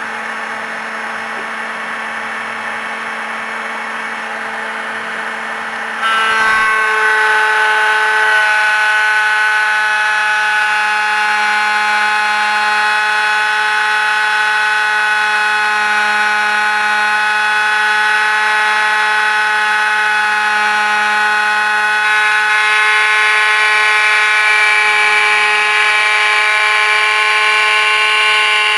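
Dremel-like high-speed spindle whining steadily as its thread-milling cutter cuts a 1 mm pitch thread into a 20 mm brass workpiece on a lathe. About six seconds in the whine steps up louder, with more tones, and then holds steady.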